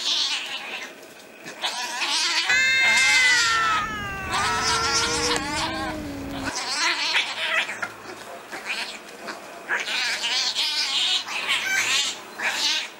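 Domestic cats fighting. Harsh hissing and spitting bursts come at the start and again through the second half. Between them, beginning about two and a half seconds in, one long yowl slides down in pitch over about four seconds.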